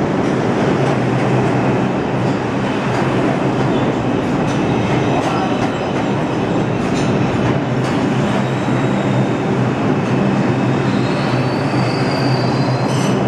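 New York City Subway R142 train moving along the platform track, a steady loud rumble of wheels on rail and running gear. A faint rising whine comes in near the end.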